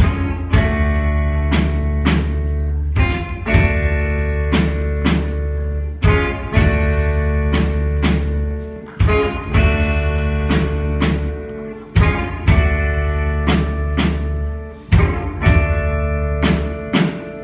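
Live band playing an instrumental intro: sustained guitar chords over heavy bass, changing about every three seconds, with sharp drum-kit hits roughly once a second.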